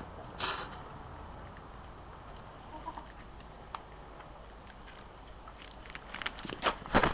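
Hens pecking layers pellets from a stainless steel bowl: scattered light ticks of beaks on pellets and metal, with a short louder burst about half a second in and a quick run of louder knocks near the end.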